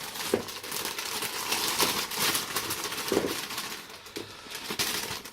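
Plastic salad bag crinkling and rustling as bagged lettuce leaves are tipped and shaken out into a bowl, with small scattered crackles throughout.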